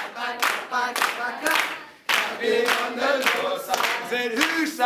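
A group of people singing together while clapping their hands in time, about two claps a second. The sound drops out briefly about two seconds in, then the singing and clapping resume.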